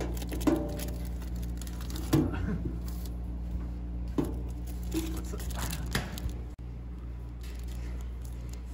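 Metal flap and tray of a retro toast-sandwich vending machine's delivery compartment knocking and clanking about five times as a hand reaches in and takes out a foil-wrapped toast, with aluminium foil rustling. A steady low hum runs underneath.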